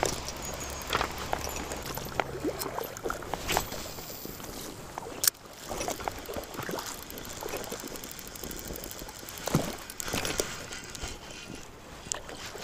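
Shallow river water splashing and gurgling close by in irregular small splashes, with a sharp knock about five seconds in and a louder splash near ten seconds.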